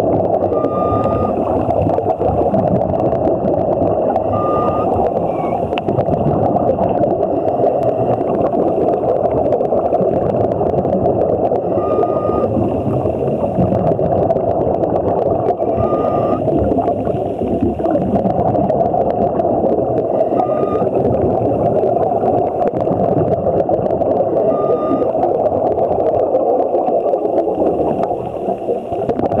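Underwater sound through a waterproof camera's body: a steady dense rushing of water and bubbles, with a short high tone that comes back about every four seconds, typical of a scuba diver's regulator breathing cycle.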